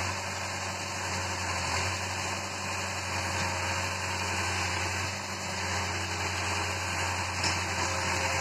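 Caterpillar E70 compact excavator's diesel engine running steadily with a constant low hum.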